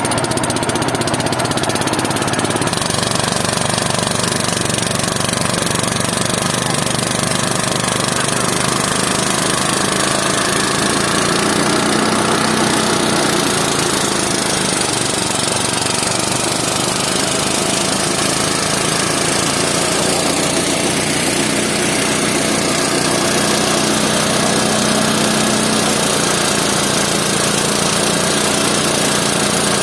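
A small engine running steadily and loudly, with a dense, even mechanical noise that holds without a break.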